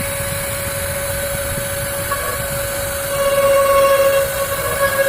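CNC router spindle running with a steady high whine, getting louder and richer about three seconds in.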